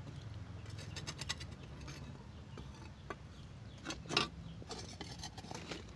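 Lumps of charcoal clinking and scraping against metal tongs and each other as they are shifted in a clay charcoal stove. There is a quick run of light clicks about a second in, and a sharper knock or two around four seconds in.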